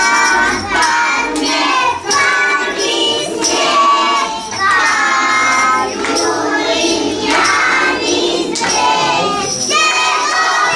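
A group of young children singing a cheerful song together.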